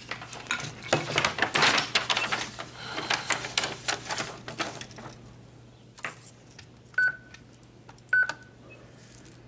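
Paper fed into a desk fax machine, with a few seconds of clicking and rattling from the handset being set down and the feed mechanism. Then two short, high beeps about a second apart as the fax starts sending.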